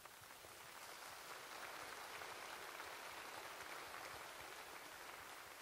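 Congregation applauding, faint, swelling over the first second and tapering off near the end.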